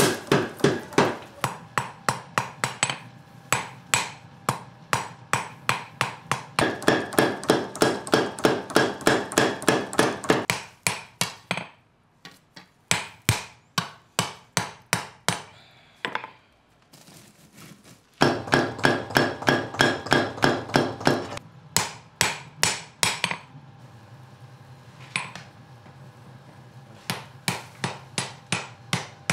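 Hammer blows on a red-hot steel knife blank over an anvil: rapid, evenly spaced strikes of about three to four a second, each with a short metallic ring. The hammering stops for several seconds about midway, resumes, and becomes sparser near the end.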